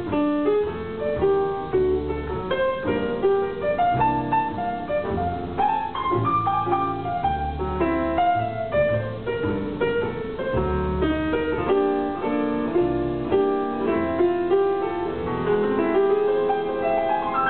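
Grand piano and double bass playing live together: a busy run of piano notes over a plucked bass line.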